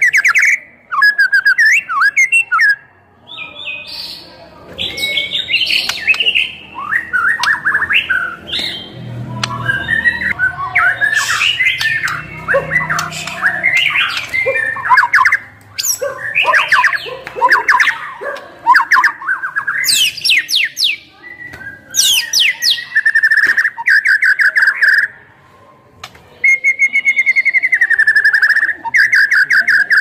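White-rumped shama (murai batu) singing a long, varied song full of mimicked phrases, with sharp clicking notes, quick whistled sweeps and short pauses between phrases. In the last third it repeats fast, rattling trills.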